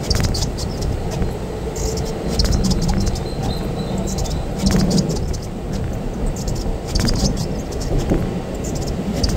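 Mumbai suburban local train running on the rails: a steady low rumble with repeated clusters of short, high squeaking clicks from the wheels on the track.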